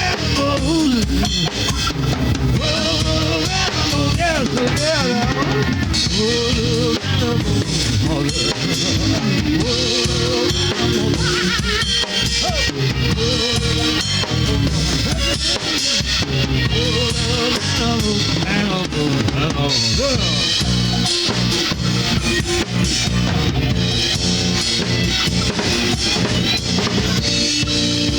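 Instrumental passage of a garage alternative rock band playing live, captured on an analog cassette: a full drum kit with bass drum and snare drives under electric guitars and bass guitar, with wavering, bending lead lines and no vocals.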